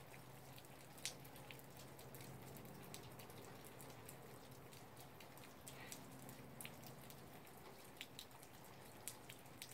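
Near silence with faint, scattered clicks and ticks at irregular intervals over a faint low steady hum.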